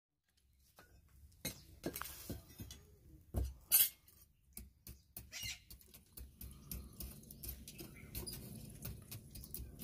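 Iron blacksmith's tools clattering and knocking as they are picked up and set down on the workshop floor: a run of sharp clinks and thuds, the loudest a few seconds in. A low steady hum joins about halfway.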